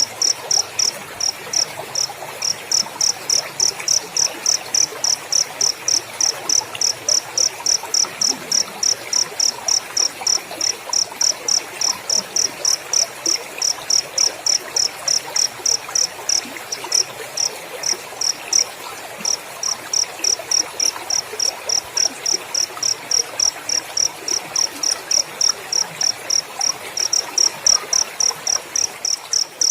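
Cricket chirping steadily in a fast, even series of high-pitched pulses, about three a second, with a brief pause a little past halfway.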